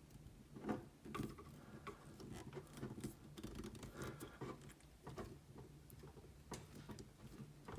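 Faint, scattered small clicks and taps of ear clamp pliers and a metal ear clamp being handled while a clamp is fitted and crimped.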